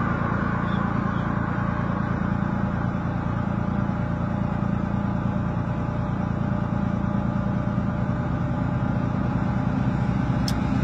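A vehicle engine idling close by, a steady low drone that does not change.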